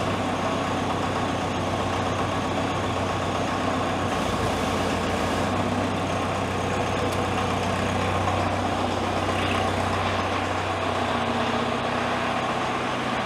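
Compact loader's engine idling steadily while its hydraulics drive a rotating brush sweeper attachment.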